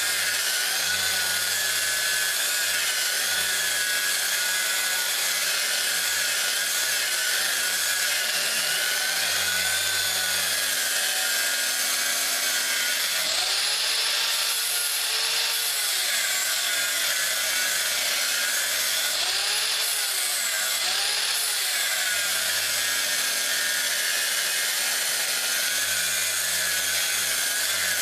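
Electric grinder with a 36-grit abrasive grinding the edge of a dull, rusty steel lawn mower blade: a steady, loud grinding rasp. The pitch swells and dips a few times around the middle.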